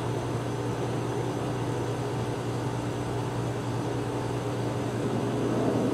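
Steady motor hum from outdoor equipment, holding one even low tone with a higher one above it.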